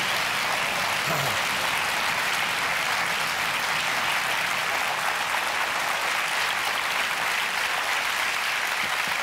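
Studio audience applauding steadily throughout.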